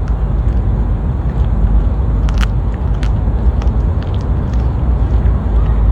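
Steady loud rumbling noise, heaviest in the low end, with scattered short clicks through it.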